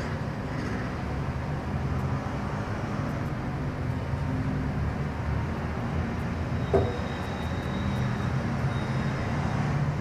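Steady low hum and rumble of a window-type air conditioner running, with one sharp knock about seven seconds in.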